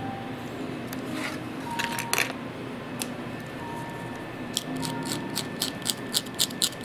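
A snap-off utility knife cutting into leather: a quick run of short scraping cuts, about five a second, starting about two-thirds in, after a few scattered scrapes earlier.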